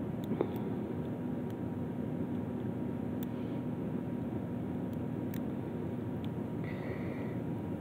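Steady background noise with a faint hum, broken by a few light clicks and taps.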